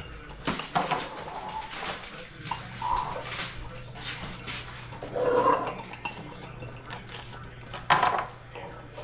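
Kitchen work: a knife cutting fish on a plastic cutting board and a chopstick stirring and tapping inside glass canning jars, with scattered clinks and knocks, the loudest near the end. Two brief pitched sounds come about three and five seconds in, and a low steady hum starts partway through.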